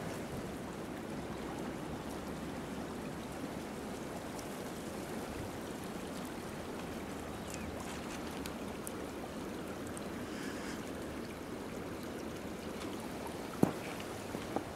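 Brook water running steadily, with one sharp knock near the end.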